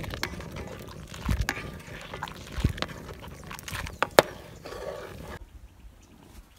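A metal ladle scraping and knocking against a cast-iron wok as frothing buffalo milk is stirred, with a steady hiss beneath. There are a few sharp knocks, the loudest about four seconds in, and the sound drops off abruptly near the end.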